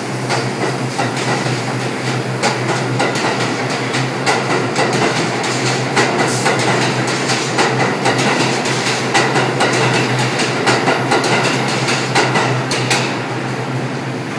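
New York subway train heard from the open gangway between two cars, its wheels clacking and knocking rapidly over the rail joints under a steady low hum. The clatter stops about a second before the end.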